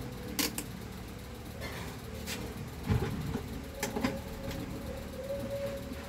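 A few sharp clicks and knocks from hands working on the plastic parts of a fan, fastening a cable tie, over a steady low hum.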